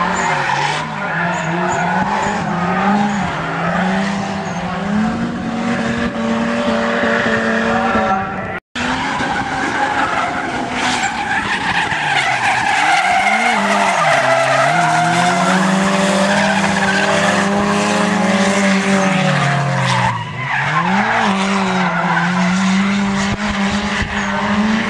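Nissan Silvia S15 and a second drift car sliding in tandem, engines revving high with the pitch repeatedly dipping and climbing as the throttle is worked, over continuous tyre squeal. The sound drops out briefly about a third of the way in.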